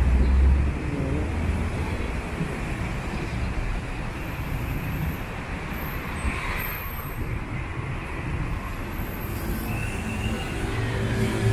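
Steady city road traffic, with motor scooters and cars running past close by; a louder low engine rumble right at the start.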